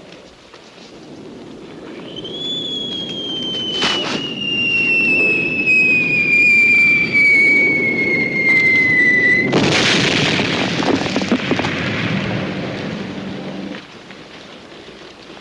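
A long whistle falls steadily in pitch for about seven seconds over a low rumble, then cuts off into a loud explosion that rumbles away over the next few seconds: the whistle of an incoming shell and its burst.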